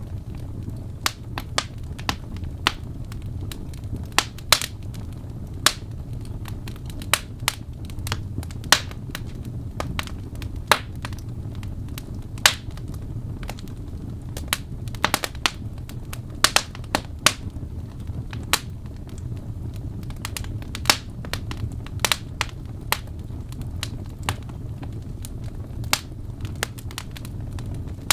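Wood fire burning: a steady low rumble with frequent, irregular sharp crackles and pops.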